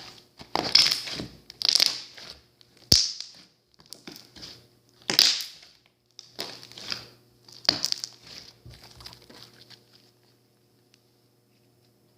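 Slime being squished and pressed by hand, giving a run of irregular crackling squishes that die away in the last two seconds.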